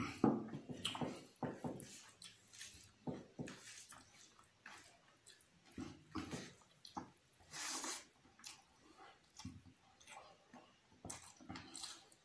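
Close-miked eating sounds of a person eating rice and curry by hand: wet chewing, lip smacks and squishing of food in an irregular run of short clicks. A knock at the very start comes from a mug being set down on the table.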